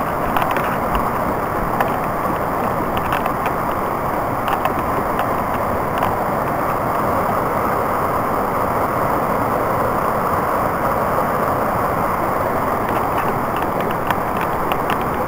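Steady rushing of a rocky brook running over rapids, with a few light clicks through it.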